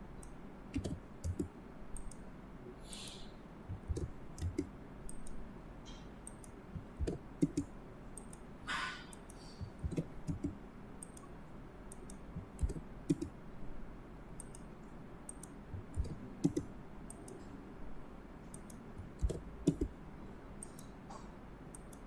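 Irregular clicks of a computer mouse and keyboard, a few a second, with pauses between, over a low steady background hiss. A short hiss sounds about three seconds in and a longer one about nine seconds in.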